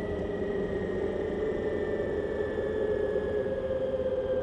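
Ather 450X electric scooter's motor whine while riding, a few steady tones slowly falling in pitch as the scooter slows, over a constant rushing road and wind noise.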